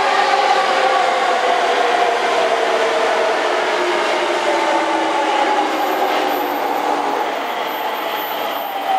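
Electric train running past on an elevated track. Its motor whine is a set of steady tones slowly dropping in pitch over a rolling rumble, fading toward the end.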